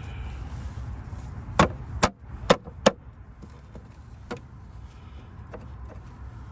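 Sharp plastic clicks and knocks as the Dodge Challenger 392's plastic engine cover is set and pressed down onto its mounts: four loud snaps within about a second and a half, then a few fainter taps, over a steady low rumble.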